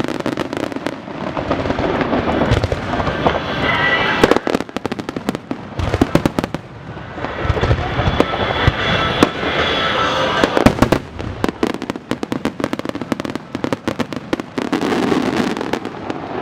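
Starmine fireworks barrage: many rapid, irregular bangs and crackles of shells bursting, with music playing alongside.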